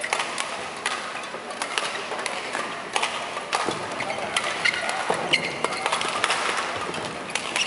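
Badminton doubles rally: rackets striking the shuttlecock in a quick back-and-forth, mixed with players' shoes squeaking on the court mat, over a steady hall murmur.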